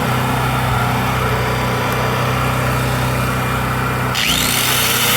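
Predator 4000 generator's single-cylinder overhead-valve engine running steadily after a stuck, gummed-up valve was freed. About four seconds in, a higher whine joins and rises in pitch.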